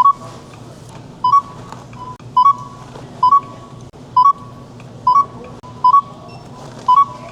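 Checkout barcode scanner beeping as items are scanned: eight short two-note beeps, roughly one a second, over a steady low store hum.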